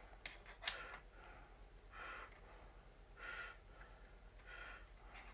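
Faint handling of small microphone-stand parts, with a light click under a second in, and a few soft breaths.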